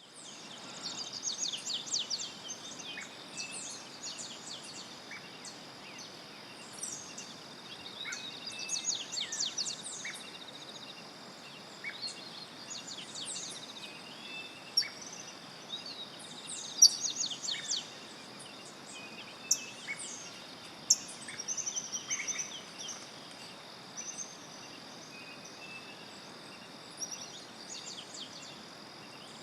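Cloud-forest birds singing: a bird repeats a fast phrase of quick high notes every few seconds, with a few sharp short calls standing out as the loudest sounds in the middle. Beneath them run a steady high-pitched insect drone and a faint even hiss.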